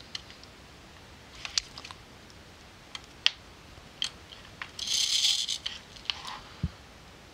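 Vintage Ricoh Auto Half film camera being worked by hand: a series of sharp small clicks from its controls, and about five seconds in a short grinding burst under a second long as its spring-wind knob is turned. The camera is not firing.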